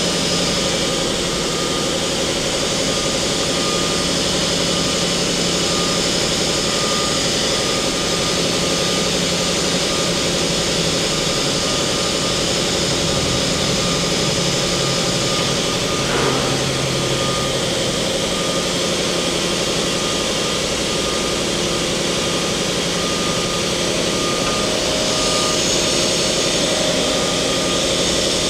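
Mori Seiki MT-2000SZ CNC turning/milling center running under power: a steady machine hum with a few constant tones while the upper milling head is jogged through its axes, with one short click about sixteen seconds in.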